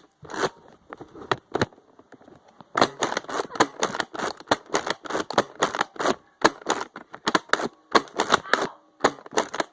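Nerf foam-dart blasters firing and clacking: a few scattered sharp clicks, then from about three seconds in a fast run of sharp clacks, several a second.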